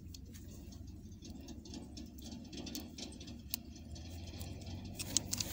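Light clicks and rustling of pliers working thin decoder wire, with a sharper click about three and a half seconds in and a few quick clicks near the end.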